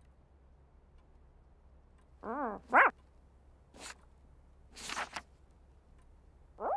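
A cartoon puppy character's voiced dog sounds: two short yips about two seconds in, the second rising higher. Two brief rustles follow, and another yip comes at the very end.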